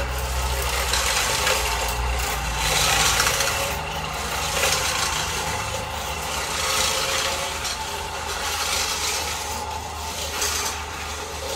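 Oreck orbital floor machine running with a cotton bonnet pad on laminate flooring. A steady motor hum sits under a scrubbing hiss from the pad on the floor that swells and fades every second or two.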